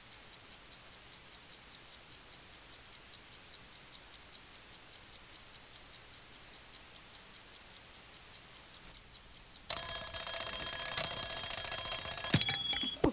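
Clock ticking steadily, about four ticks a second, then an alarm clock rings loudly for about three seconds near the end and cuts off.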